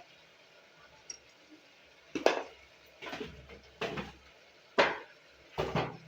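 Metal spoon clattering and scraping against a pressure cooker, about five short strokes starting some two seconds in, as salt is added and stirred into the frying masala.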